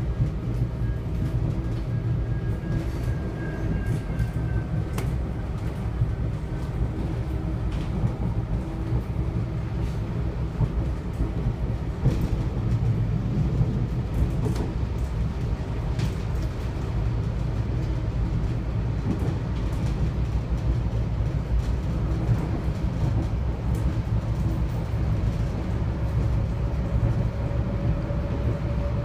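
Steady running noise inside a moving suburban diesel railcar: a low rumble of engine and wheels, with a sharp click now and then as the wheels pass over rail joints.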